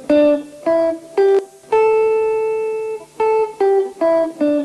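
Electric guitar playing single notes of the A blues scale in its upper octave: four notes climb to a high A, which rings for about a second and a half, then five notes step back down.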